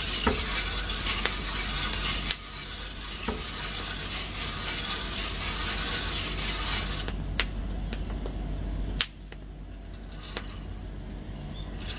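Coffee beans tumbling and rattling inside a hand-cranked wire-mesh drum roaster over a portable gas burner, with scattered sharp clicks. A dense hiss drops away about seven seconds in, and the sound is quieter after about nine seconds.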